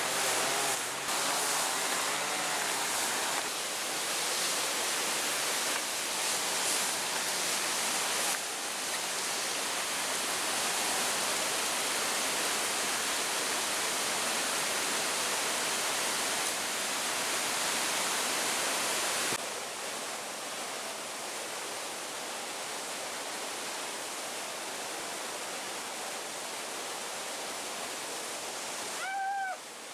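Mountain river rushing, a steady full hiss of fast-flowing water that drops slightly in level about two-thirds of the way through. A brief high-pitched cry sounds near the end.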